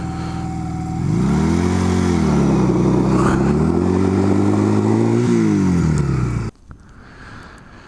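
Honda Rebel motorcycle engine idling, then revved hard about a second in, its pitch swinging up and down several times as the rider tries to spin the rear wheel on the rocks. The engine sound drops back and cuts off abruptly about six and a half seconds in.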